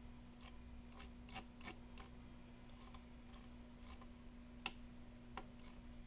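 A handful of faint, irregular computer mouse clicks over a low steady hum.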